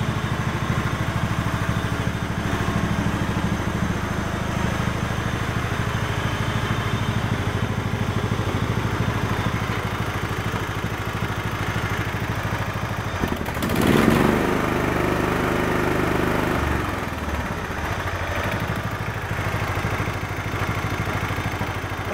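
Husqvarna YTH1746 hydrostatic lawn tractor engine running steadily at idle. About two-thirds of the way through it briefly grows louder and higher for a couple of seconds.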